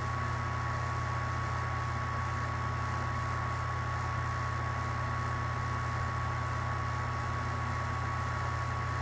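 Steady machine hum with a constant high-pitched whine over it.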